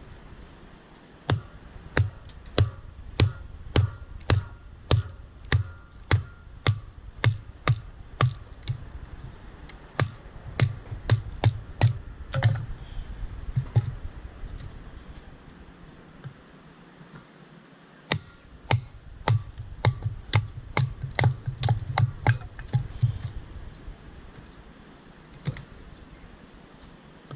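A rhythmic series of sharp taps, each with a dull thud, about two a second. It stops for a few seconds midway, then starts again for a shorter run.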